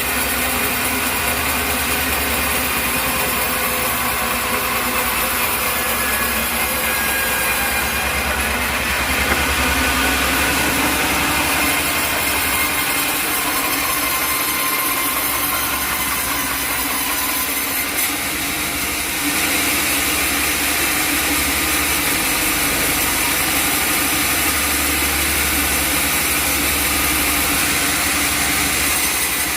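Sawmill running steadily: a saw cutting through an acacia log over the drone of its engine, with a small click about 18 seconds in and a slight rise in level just after.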